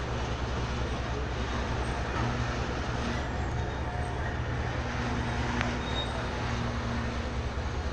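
A train running at a steady pace: a continuous low rumble and hum.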